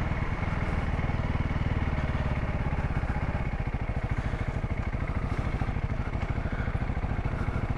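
Single-cylinder 300cc dual-sport motorcycle engine running steadily at low revs, a rapid even pulse with no revving.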